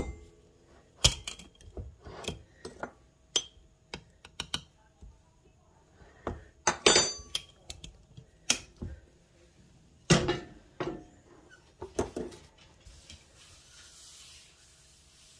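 Scattered clicks and knocks of kitchen things being handled while flour is shaken out onto the countertop, then a soft brushing rub near the end as a hand spreads the flour across the counter.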